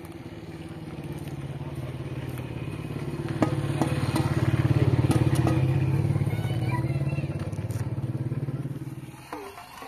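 An engine running steadily with a low hum. It grows louder to a peak about five seconds in, then fades and drops away near the end, with a few knocks and clatters over it.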